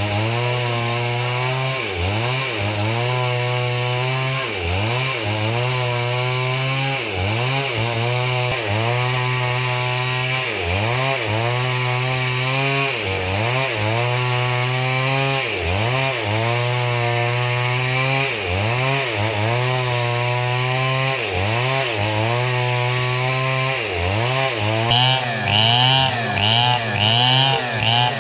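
Stihl two-stroke chainsaw running at high speed while sawing wood. The engine note dips and recovers about every two seconds as the chain takes load. Near the end it turns louder and choppier, pulsing about once a second.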